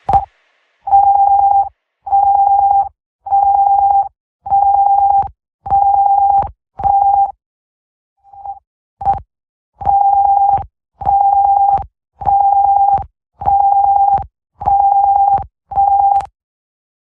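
Electronic alert tone beeping: one steady mid-pitched tone pulsed about once a second, six long beeps, a brief pause with a short blip, then six more.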